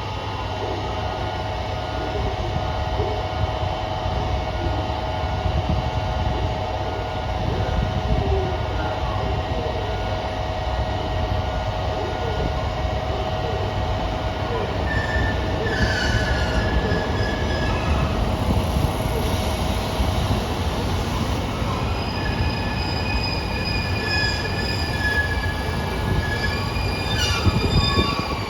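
JR Kyushu KiHa 200 diesel railcar running at a standstill: a steady low rumble with thin whining and squealing tones over it, a mid-pitched whine for the first twenty seconds or so and higher whistling tones from about halfway on. The unit is giving off an abnormal noise traced to car KiHa 200-1551.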